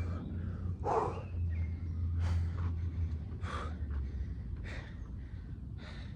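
A man breathing hard from exertion: heavy, noisy breaths about one every second and a quarter, five in all, over a low steady hum that eases off about four seconds in.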